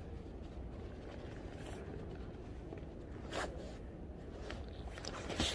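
Steady low outdoor rumble with a few brief rustles of clothing and camera handling, about one and a half seconds in, again near three and a half seconds, and at the end, where the sound cuts off suddenly.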